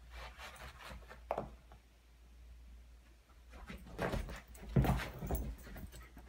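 Two small dogs playing: irregular scuffling and rustling of paws and bodies on carpet and against a large plush toy, with a short sharp knock about a second in and a louder flurry of scuffles and a thump a little before the end.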